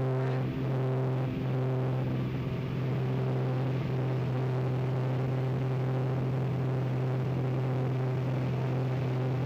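Propeller aircraft engine holding a constant drone: one steady low hum with a row of even overtones above it, unchanging in pitch.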